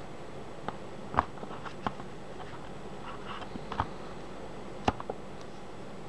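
Short, sharp clicks from a Leatherman Crater c33Lx folding knife being handled while its blade is folded shut. There are about six clicks, the loudest a little over a second in, over a steady hiss.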